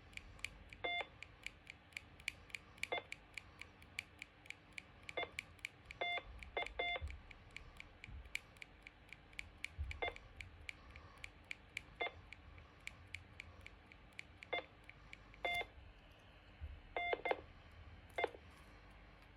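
Quick, irregular clicks, two or three a second, with short electronic beeps, some single and some in pairs, every second or two: buttons being pressed on a device that beeps.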